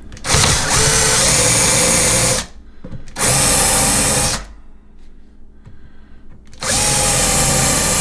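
Cordless drill/driver run in three bursts of one to two seconds each, driving screws into a door ball catch's strike plate in a wooden door jamb.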